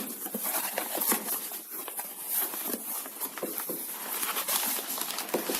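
A shipping package being opened by hand: irregular rustling and handling noise with many small clicks and knocks.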